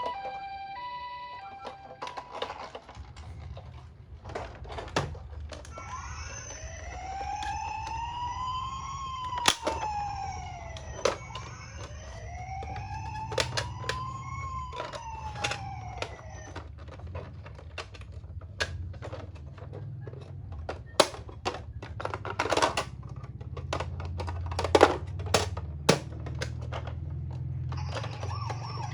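Toy ambulance minicar's electronic siren wailing in two slow rising-and-falling sweeps, over a low rolling rumble from the running toy car. Scattered sharp plastic clicks and knocks. A different steady high electronic tone starts near the end.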